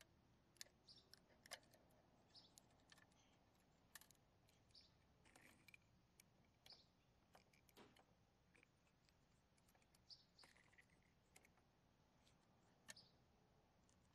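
Faint, scattered clicks and taps of a First Gear toy side-loader garbage truck and its small plastic trash carts being handled and set down on a wooden table.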